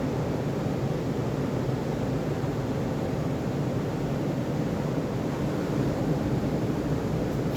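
Steady rush of sea surf mixed with wind, heaviest in the low range, with no distinct single wave breaks.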